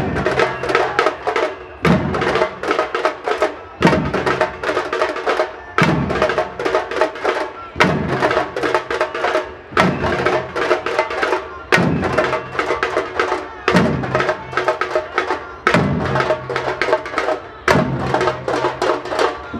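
Marching percussion band playing a dense, fast drum rhythm, with a heavy low drum stroke about every two seconds.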